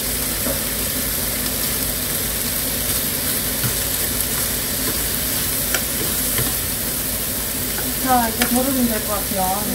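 Thin slices of hanwoo beef sirloin sizzling in a frying pan, a steady frying hiss, with a few clicks of metal utensils against the pan as the slices are turned.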